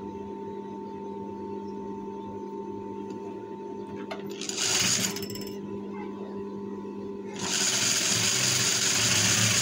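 Industrial single-needle lockstitch sewing machine stitching in two runs: a short burst about halfway through and a longer run of about two seconds near the end. A steady hum sounds underneath between the runs.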